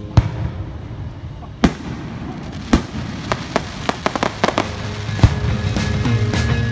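Aerial fireworks bursting: a few sharp bangs a second or so apart, then a quick run of crackling pops from crackle shells, and another loud bang near the end. Music with a steady beat comes back up underneath near the end.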